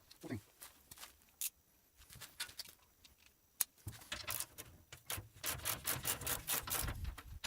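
Hand tools working on the wheelbarrow's axle nuts: scattered clicks and taps, then from about four seconds in a few seconds of quick rubbing, scraping strokes of metal on metal.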